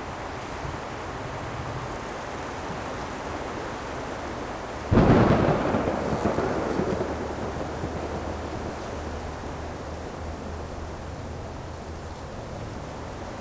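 Thunderstorm: steady rain with a sudden loud thunderclap about five seconds in that rumbles away over several seconds.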